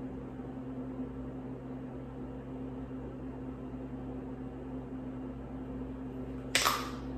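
Steady low hum of room tone, with a short hissing noise about six and a half seconds in.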